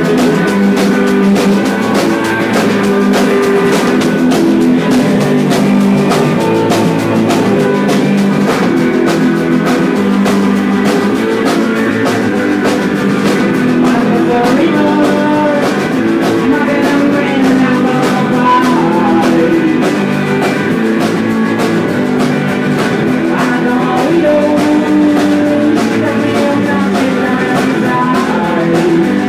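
Garage rock band playing live: electric guitars and a drum kit going steadily with a constant beat and crashing cymbals.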